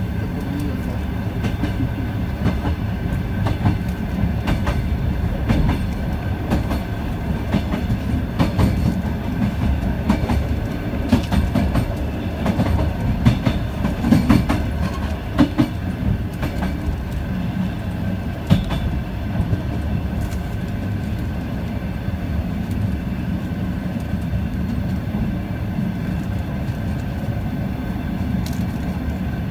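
ET2 electric train running along the line, heard from inside the passenger car: a steady low rumble of wheels on rails, with a run of clicks and knocks from the wheels near the middle.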